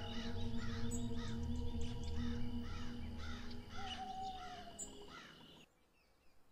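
A steady series of short bird-like calls, each rising then falling, about two or three a second, over a soft music bed with a low hum. Everything fades out about five and a half seconds in.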